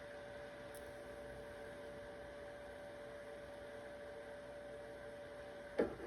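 Steady electrical hum with a faint higher whine, and a single sharp tap near the end.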